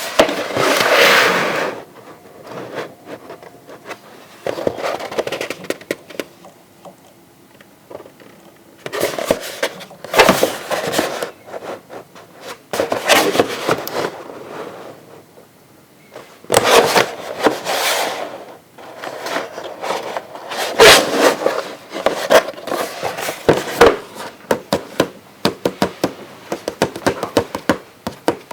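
A toy's packaging being handled and opened by hand: irregular scraping and rustling in bursts, with many sharp clicks and taps between them.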